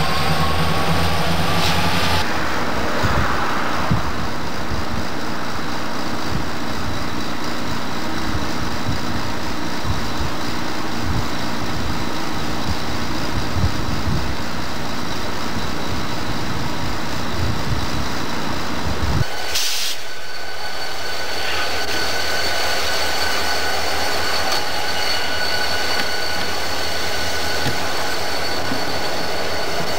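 Diesel-hauled freight trains passing. A locomotive horn sounds until about two seconds in. Then comes the rumble and clatter of a passing train's wheels, and after an abrupt change near twenty seconds a steady high whine over a low hum as more locomotives come on.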